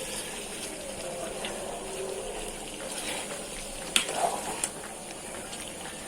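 Hilsa shutki curry simmering and bubbling in a pan on the stove, with a sharp knock about four seconds in and a smaller one just after.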